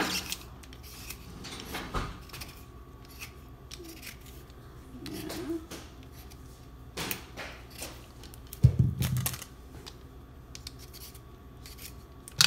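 Vegetable peeler scraping the skin off a beetroot in short, irregular strokes, with a heavier low thump about two-thirds of the way through.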